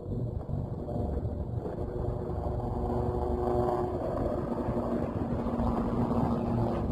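An engine running with a steady hum that grows a little louder through the middle, over a low wind rumble on the microphone.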